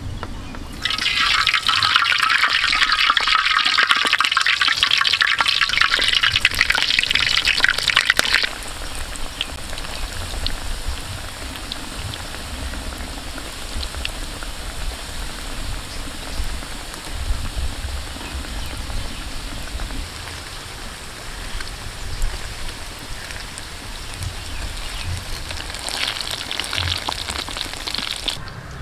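Breaded balut duck eggs deep-frying in hot oil in a steel wok: a loud sizzle for the first seven seconds or so, then a quieter steady crackle with scattered pops, sizzling up again briefly near the end.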